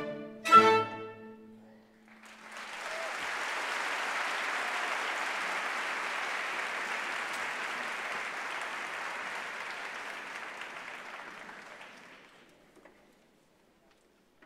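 A symphony orchestra closes with two short, sharp chords, the second the loudest. Then an audience applauds: the clapping swells about two seconds in, holds steady for about ten seconds and dies away near the end.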